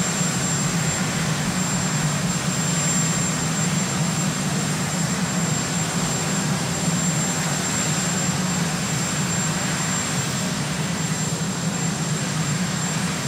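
Marine One helicopter's turbine engines running steadily: a loud, even rumble with a thin high whine, no change in pitch or level.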